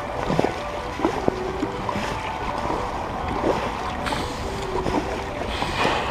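Kayak paddling: irregular short splashes and knocks of the paddle strokes, about one a second, over steady wind noise on the microphone.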